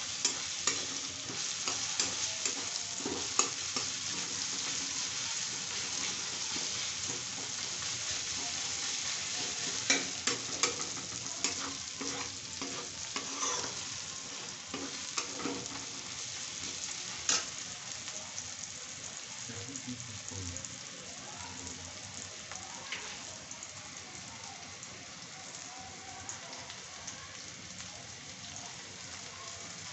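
Onions and tomatoes sizzling in hot oil in a kadai, with a metal spatula scraping and clicking against the pan as they are stirred. The clicks are frequent for the first half and thin out after about 18 seconds, while the sizzle slowly grows softer.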